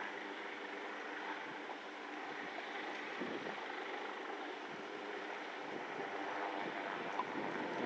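Steady outdoor background noise: wind on the microphone over a low, steady engine hum.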